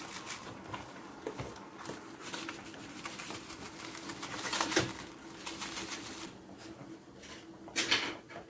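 Coarse rock salt poured from a cardboard box onto a cut of beef and into a plastic container, a dense crackly rustle of grains with two louder rushes, one midway and one near the end, while the beef is buried in salt for dry-curing.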